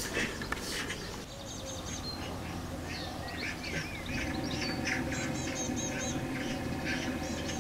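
Eurasian magpies giving harsh, rattling chatter calls in short runs, with smaller birds chirping high-pitched in the background.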